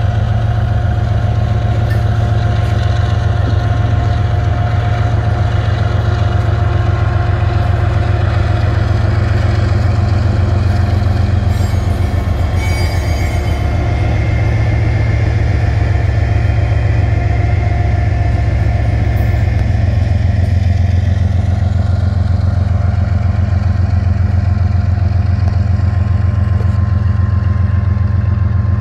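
Union Pacific diesel-electric freight locomotive idling: a loud, steady low hum.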